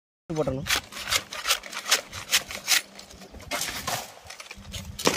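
A sharp sickle cutting and scraping through palmyra palm stalks, with a run of quick, crisp strokes and rustles, most of them in the first three seconds.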